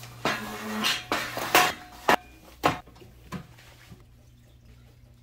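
White metal folding step stool clattering as it is carried and set down on a wooden floor, with several sharp metallic clanks in the first three seconds.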